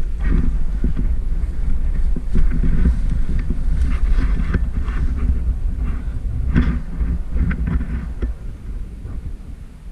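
Heavy low rumble of wind and handling noise buffeting the microphone, with scattered clicks and rustles over it.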